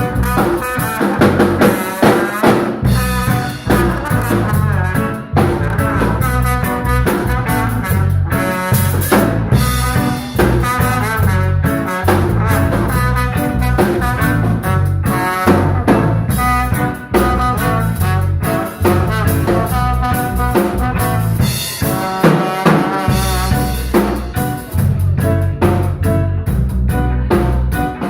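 Live instrumental band playing a jazzy groove: drum kit with rimshots over a heavy bass line, with a melody line on top and no vocals.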